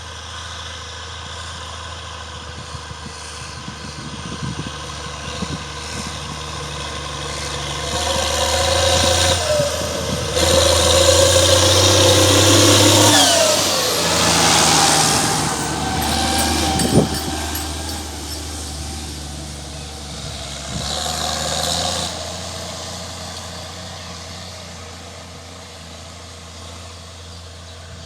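An IHC 1246 tractor's diesel engine, modified to about 170 hp, runs under load. The engine note builds to its loudest stretch about ten to thirteen seconds in, then falls away with a dropping whine. There is a single sharp click a few seconds later, a smaller surge after that, and the sound fades toward the end.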